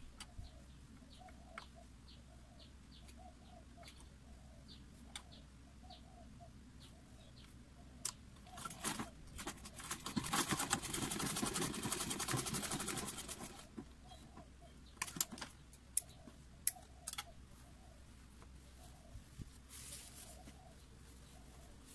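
Domestic sewing machine stitching a seam in one short run of about three and a half seconds, a rapid even stitching rattle, with scattered clicks and knocks from handling the fabric and machine before and after.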